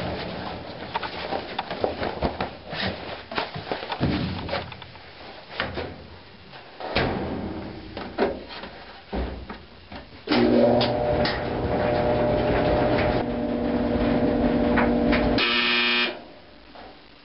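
Knocks and clatter as laundry and the washer are handled. Then a clothes dryer starts suddenly and runs with a steady hum. Near the end its buzzer sounds briefly, and it stops.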